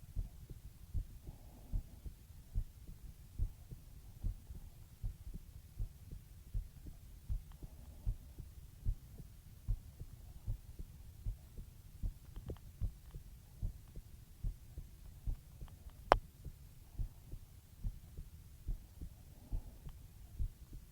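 A slow, steady human heartbeat heard close up: low, dull beats a little over one a second. One sharp click sounds about sixteen seconds in.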